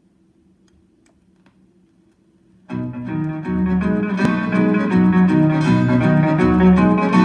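A 45 rpm vinyl single on a turntable. A faint hum and a few surface ticks come from the lead-in groove. About two and a half seconds in, a string band's instrumental intro starts abruptly, with guitar and fiddle over bass.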